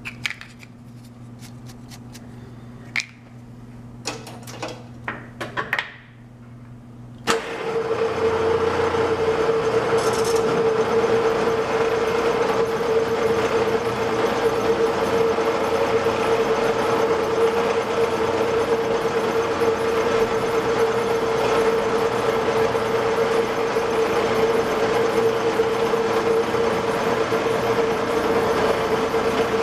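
A few clicks and knocks from setting up a metal lathe. Then about seven seconds in, the lathe switches on and runs steadily, with a strong steady tone over its running noise as it spins a steel bar in its three-jaw chuck.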